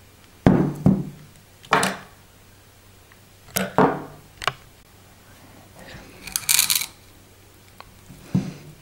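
A glass wine bottle and a kitchen knife handled on a cloth-covered table: a series of short knocks as the bottle is lifted and set down and the knife picked up, with a brief scrape about two-thirds through as the knife tip is worked against the cork.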